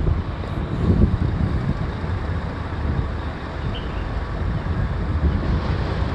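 Low, steady rumble of road traffic mixed with wind buffeting the phone's microphone.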